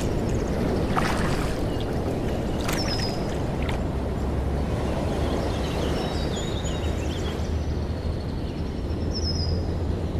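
Waterfront ambience: a steady rush of wind and water noise with a low hum that strengthens about four seconds in, and a few short, high bird chirps.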